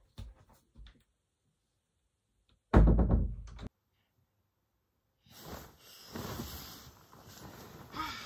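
A few faint clicks, then one heavy thump about three seconds in. After a silent gap comes a steady rustling of bedding as someone moves on a bed.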